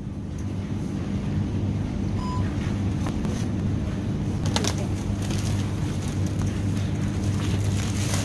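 Steady low hum of supermarket freezer cabinets and ventilation, with a few crinkles of a plastic bag of frozen meat being handled and a brief beep about two seconds in.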